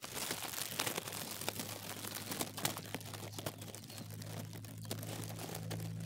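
A cat chewing and tearing at grass blades: crisp crunching and crackling clicks packed close together. A steady low hum comes in about two-thirds of the way through.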